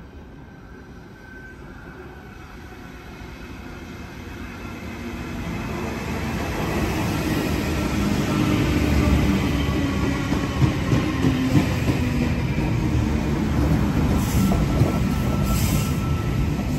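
Double-deck Intercity V-set electric passenger train approaching and running past: its rumble builds over the first several seconds, then holds as steady wheel-on-rail noise with a few sharp clicks and a faint high squealing tone.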